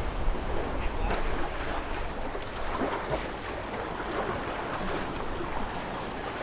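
Sea waves washing against the jetty's rock boulders, with wind gusting on the microphone.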